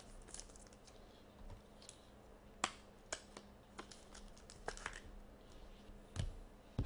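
Faint, scattered clicks and rustles of a trading card being handled between the fingers, with a couple of dull taps near the end.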